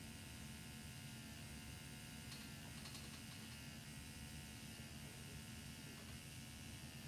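Motorized FUE punch handpiece running with a faint, steady hum, its pitch dipping briefly about once a second as the punch meets resistance cutting out individual grafts.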